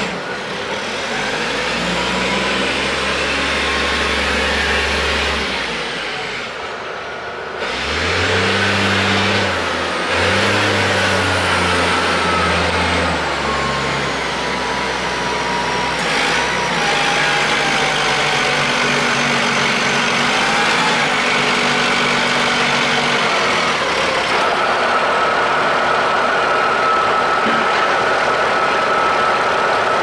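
Wheel loader's diesel engine revving up and down as its log grapple lifts and carries a heavy log, with whines from the hydraulics gliding up and down in pitch over it. Near the end the engine settles and a steady whine holds.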